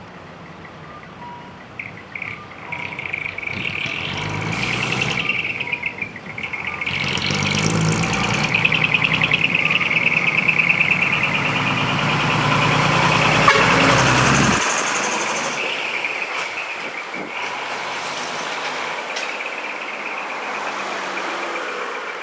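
Decorated dump trucks (dekotora) driving off, their diesel engines running and revving, with short hisses about 5 and 8 seconds in. A truck-mounted siren gives a steady wavering wail throughout, and the engine noise drops away suddenly about two-thirds of the way through.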